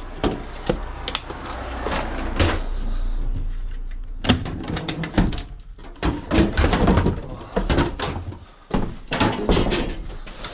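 Scrap metal being handled and loaded into the back of a van: a run of clanks, knocks and rattles.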